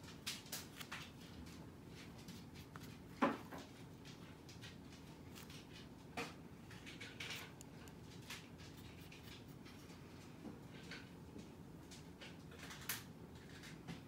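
Scattered light clicks and taps of a small stone and paintbrush being handled on a paper-covered tabletop, with one louder knock about three seconds in, over a steady low room hum.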